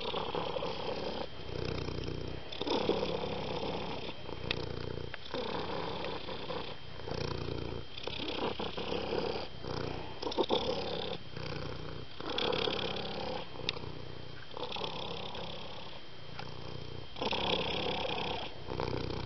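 A domestic cat purring, the purr rising and falling with each breath in and out, about a second or two per breath.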